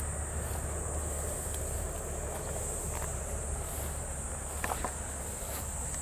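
Steady chorus of insects in a rice paddy, one continuous high trill, over a low rumble. A few soft footsteps brushing through grass on the path come about three-quarters of the way through.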